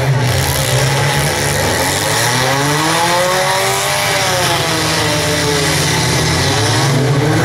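Demolition derby cars' engines running in the arena, with one engine revving up slowly and falling back over a few seconds in the middle.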